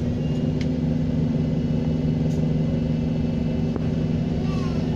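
Bus diesel engine running steadily with a low drone, over which a faint high turbocharger whistle sounds.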